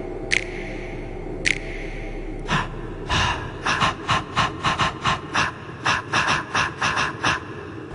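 Breakdown section of a K-pop dance track, with no singing. A couple of sharp single hits are followed by a fast run of short, breathy gasp-like vocal stabs, about three a second, and the section ends on a loud hit.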